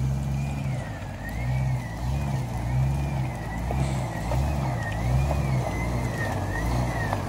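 Jeep Cherokee XJ engine on a rock-crawling climb, its revs rising and falling about once every 0.7 seconds as the throttle is worked. A high whine, likely from the drivetrain or power steering, rises and falls with the revs.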